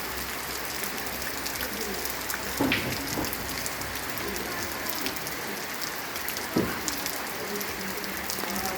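Heavy rain falling steadily, a dense patter of drops, with two louder single hits standing out, one about a third of the way in and one about three quarters in.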